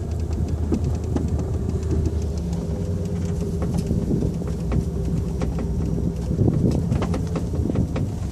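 A vehicle engine idling steadily with a low hum, with scattered light clicks and rustles of handling over it.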